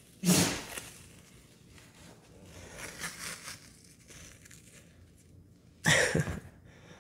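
White athletic tape ripped off the roll twice: a loud tearing just after the start and another near the end, with softer rustling of tape being handled in between.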